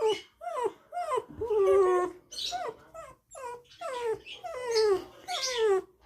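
Dog whining in a rapid string of short cries that fall in pitch, one held longer about a second and a half in. It is excited whining at squirrels the dog can see.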